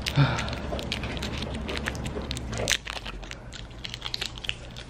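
Small plastic wrapper crinkling and crackling as it is handled by hand, in an irregular run of sharp crackles.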